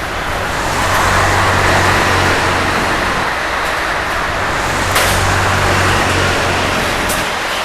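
Steady motor-vehicle noise: a low engine hum under a wide rushing sound, with a brief sharp click about five seconds in.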